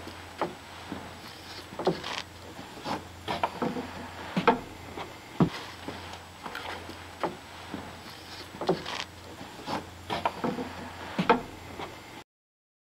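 Irregular light knocks, taps and scrapes of wood on wood as a thin wooden template is handled and shifted on a hewn log, over a steady low hum. The sound cuts out abruptly shortly before the end.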